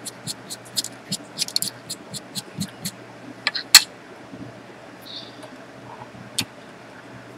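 Quick small clicks and taps as a sterling silver pendant frame is handled and set down on a soldering bench surface, thick in the first three seconds, with one sharper click a little before the fourth second and another about two seconds later, over a steady low hum.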